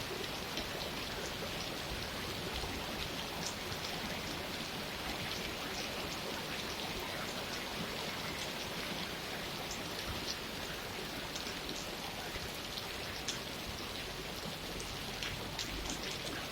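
Steady rain falling, with many individual drops ticking sharply against the even hiss.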